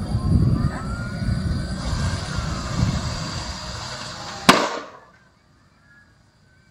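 Low rumbling noise, then a single loud, sharp bang from the burning bus about four and a half seconds in, ringing briefly before the sound drops away to a faint background.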